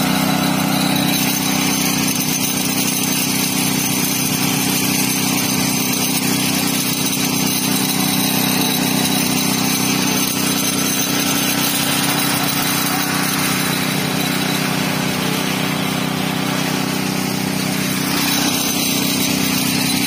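Small petrol engine of a concrete poker vibrator running steadily at constant speed, a loud, unbroken engine drone.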